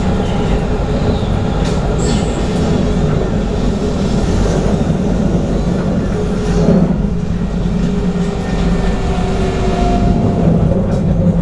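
Interior running noise of an Alstom Citadis 302 tram in motion: a steady rumble of wheels on rail and traction equipment. Faint whining tones drift in pitch in the second half, with a few light clicks.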